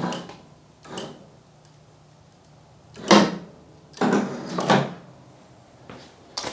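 Green Guard chute blocker flap on a mower deck being swung up and down by hand, with a clunk near the start, a lighter one about a second in, and three more between three and five seconds as it lifts and seats. Its worn gear has just been repaired, so the flap moves without slop.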